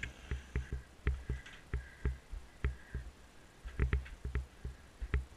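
Irregular dull thumps with light clicks, about two or three a second: a Shetland pony's footfalls and the jolting of the sled and its metal shafts as the pony pulls it along.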